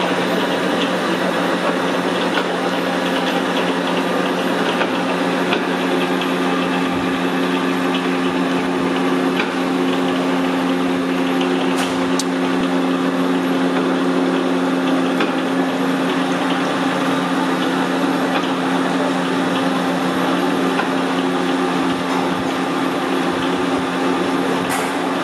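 Horizontal milling machine running, its disc gear cutter milling the teeth of a motorcycle rear sprocket under a stream of coolant. A steady motor hum sits under a dense cutting noise, and a second hum tone grows stronger about five seconds in.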